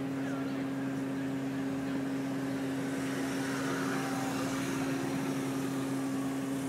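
Bucket truck's engine running steadily with an unchanging hum.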